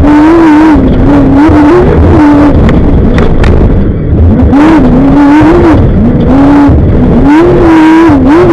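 Off-road race vehicle's engine at racing speed, very loud, its pitch sweeping up and levelling off several times as it accelerates through the gears. It briefly lifts off about four seconds in, then pulls hard again.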